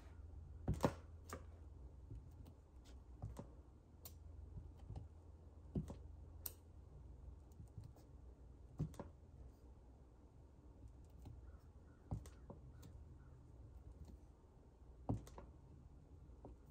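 Irregular light taps and clicks of hands working with card-making supplies on a tabletop, over a low steady hum. The sharpest clicks come about a second in and near the end.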